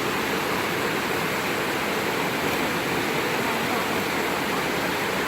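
Waterfall crashing into its plunge pool: a steady, even rush of falling water.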